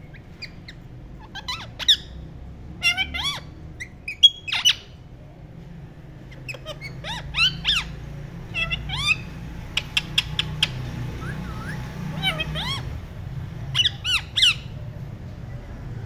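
Rose-ringed parakeets giving short, harsh squawks that glide up and down in pitch, in clusters every second or two, over a steady low hum.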